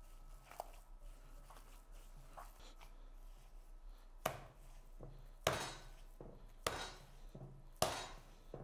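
Minced-meat kofta mixture being kneaded by a gloved hand in a bowl, to work the spices, parsley, onion and garlic into the meat. It starts with faint soft clicks; from about four seconds in, handfuls of meat are pressed back into the bowl, each with a short sharp stroke, about one a second.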